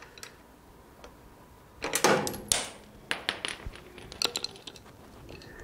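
Metal clinks and rattles of a screwdriver and a gear being worked off the gear selector shaft of a 9x20 lathe. The clinks come as a cluster about two seconds in and then as a run of separate sharp clinks.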